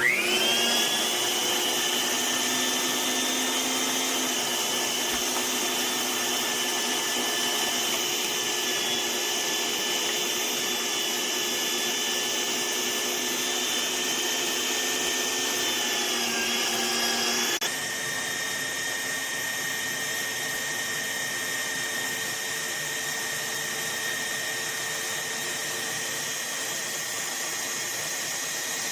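Electric meat grinder's motor switched on, its whine rising to speed within about a second, then running steadily. About two-thirds of the way through, the pitch and level change abruptly to a slightly quieter, steady whine.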